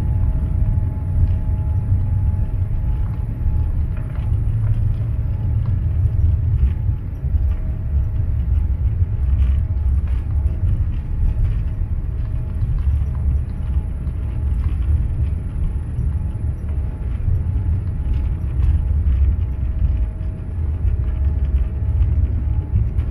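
Cabin noise of a Boeing 787-8 taxiing, heard from a seat over the wing: a steady, heavy low rumble from the engines and the wheels rolling on the taxiway, with a faint steady whine and occasional light rattles.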